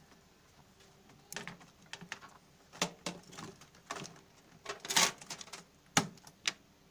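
Laptop keyboard being pressed down into its bay: a string of irregular plastic clicks and clacks as the keys and the keyboard edge are pushed into place, the loudest about five seconds in.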